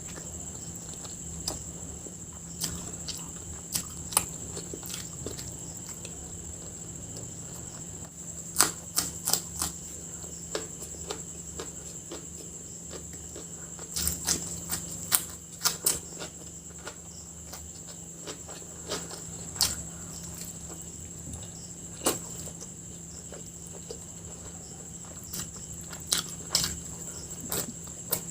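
Close-up eating sounds: scattered sharp clicks and taps of hands and food on a plate, clustered in a few short runs, over a steady high-pitched whine and a low hum.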